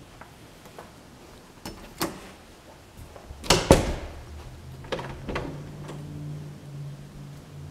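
Wooden drawer being pushed shut: a couple of light clicks, then two loud knocks in quick succession about three and a half seconds in, followed by two softer knocks. A low steady hum comes in after about five seconds.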